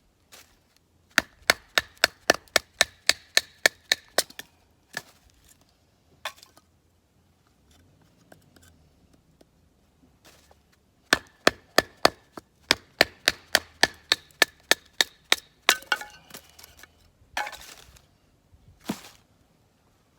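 Kitchen knife chopping food on a wooden cutting board: two runs of quick, even strokes, about four to five a second, with a few single knocks between and near the end.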